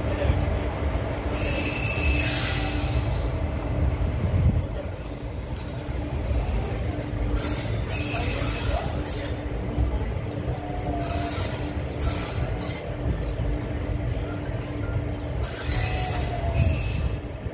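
Passenger train coach running along the track, a heavy steady rumble of wheels on rail. High-pitched wheel squeals come in about four short spells a few seconds apart.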